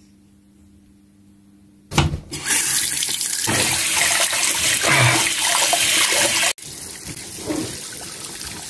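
Water running from a bathroom sink tap while hands are washed under it. It starts suddenly about two seconds in, then drops abruptly to a quieter rush for the rest.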